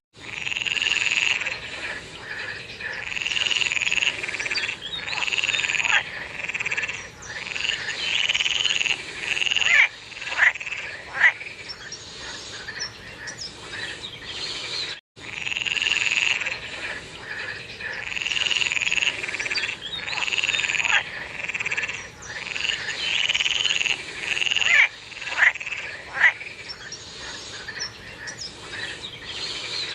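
A chorus of frogs calling, with overlapping calls of about a second each repeating over and over, and a few short, sharp single calls among them. The sound cuts out completely for an instant about halfway through.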